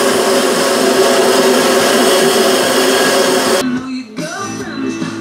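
Bandsaw running while a piece of Kydex is fed through the blade: a loud, steady motor and blade noise. It breaks off abruptly a little over three seconds in, and music follows.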